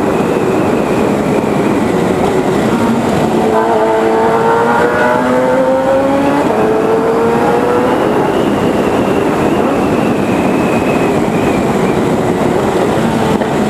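Motorcycle inline-four with a 4-into-1 sport exhaust running under way over steady wind rush. A few seconds in, its note climbs as the bike accelerates, then levels off.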